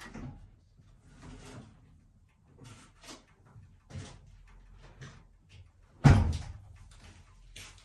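Scattered light clicks and knocks, with one heavy thump about six seconds in.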